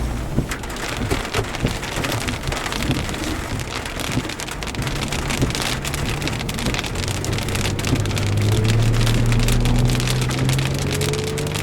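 Heavy rain falling, with many sharp ticks of drops striking close by. From about halfway in, a vehicle engine's hum joins in, grows louder and slowly rises in pitch.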